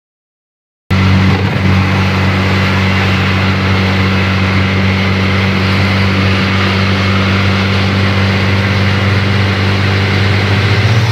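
A road vehicle's engine runs steadily while the vehicle is moving, heard from on board as a low, even hum over road and wind noise. It starts after about a second of silence.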